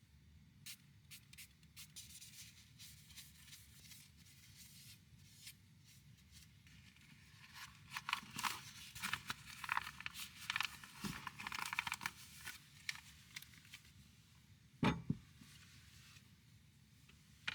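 Close rustling and tearing of something being handled, with many short clicks, busiest in the middle, and two sharper knocks about fifteen seconds in.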